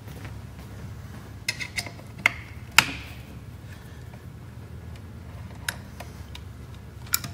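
Scattered sharp metallic clicks and clinks, about six, the loudest nearly three seconds in, from a T-handle wrench working the screws of a floor edger's chrome motor cover as it is taken off to reach the brushes.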